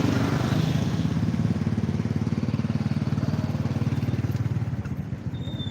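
Motorcycle engine running steadily with an even low firing pulse, easing off slightly toward the end. A brief high tone sounds near the end.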